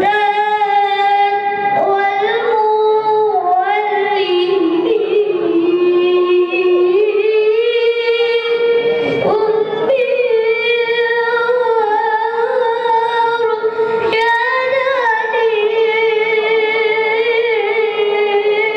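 A high voice singing solo in long held notes that glide slowly up and down with ornamented turns, with only short breaks for breath.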